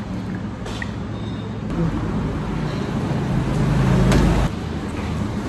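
Road traffic: a motor vehicle's engine hum grows louder over a couple of seconds, then cuts off suddenly about four and a half seconds in.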